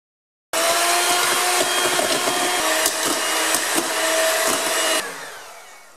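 Electric hand mixer running, its beaters whipping egg whites and sugar in a stainless steel bowl: a loud, steady motor whine with occasional clicks. It starts about half a second in and drops away about five seconds in.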